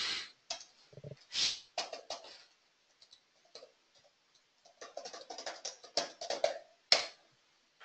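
Computer keyboard keystrokes: a short run of typing, a pause, then a quicker burst of keys about five seconds in, ending in a sharper tap near the end.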